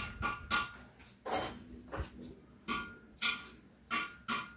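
Small knife peeling a raw potato by hand: a run of short, sharp scraping strokes, just under two a second.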